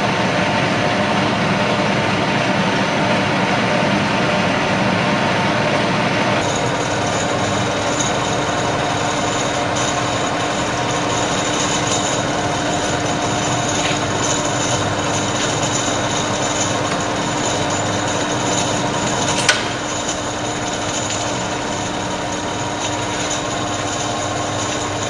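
Radial arm drill running steadily, its motor and spindle gearing giving a dense mechanical noise with steady tones. The tone shifts about six seconds in, and there is one sharp click later on.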